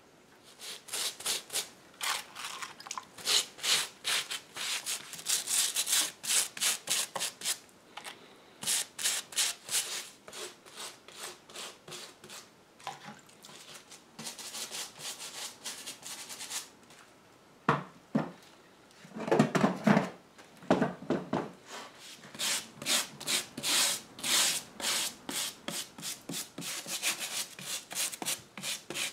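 A damp cloth rag rubbing hard over a woven rush chair seat and its wooden frame, wiping off dust and suspected mildew with a vinegar-and-water solution. It comes as quick back-and-forth strokes, several a second, in runs with short pauses between them. About two-thirds through there are a few louder, deeper scuffs.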